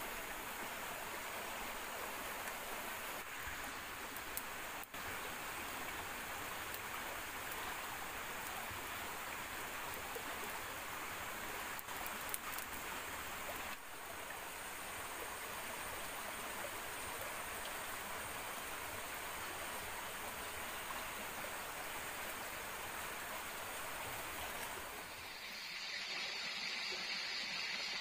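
Steady rushing of flowing water, like a forest stream, with a few faint clicks in the first half; the sound changes character a little before the end.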